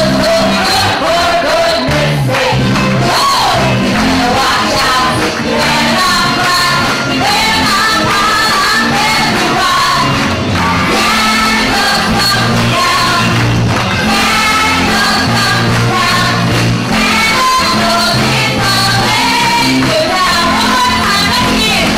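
A pantomime cast singing together as a group over instrumental accompaniment with a steady bass line, an upbeat song.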